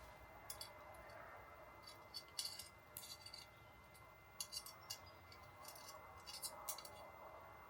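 Faint, scattered light clicks and clinks, a dozen or so at uneven intervals, over quiet room tone.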